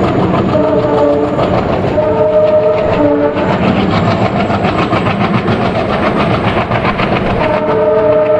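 Uttaranchal Express train running fast, its wheels clattering over the rail joints in a rapid, even rhythm. The locomotive horn sounds a chord three times: two short blasts in the first few seconds, then a longer one starting near the end.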